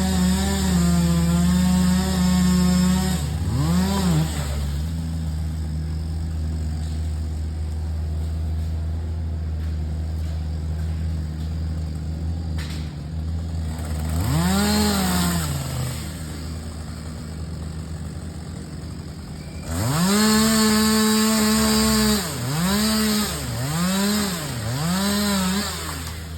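Two-stroke chainsaw idling, revved to full throttle several times: a held run of about three seconds at the start, a short blip, another rev midway, a longer held run, then three quick throttle blips near the end.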